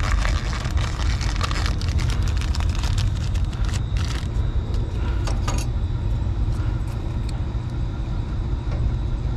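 Light metallic clicks and rattles of hands working on the high limit switch and its wiring inside a gas-fired rooftop unit, thinning out after about six seconds, over a steady low rumble.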